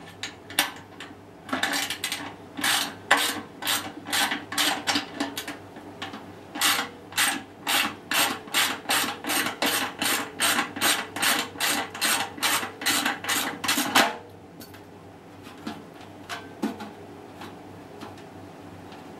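Hand tool worked back and forth on the spider bolts of a stainless-steel washing-machine drum: quick rasping strokes, about two a second, stopping suddenly about 14 seconds in, followed by a few light clicks.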